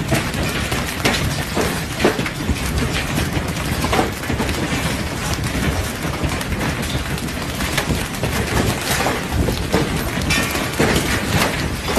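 Heavy hail pelting down, countless hailstones cracking on stone paving and plunking into a swimming pool in a dense, continuous clatter over a steady low rush.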